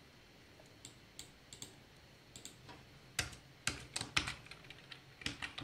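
Computer keyboard being typed on: a few light, scattered keystrokes at first, then a quicker run of louder keystrokes from about three seconds in.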